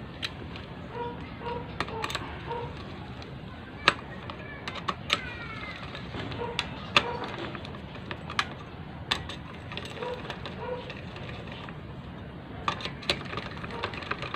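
Irregular sharp clicks and clinks of small metal engine parts and hand tools being handled, a dozen or so spread unevenly, as a Bajaj CT 100 motorcycle engine is reassembled.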